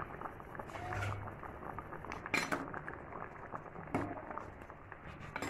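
Steel ladle stirring a thick simmering curry in an earthen clay pot, scraping and clinking against the pot's side several times, with the loudest clinks a quick pair about halfway through.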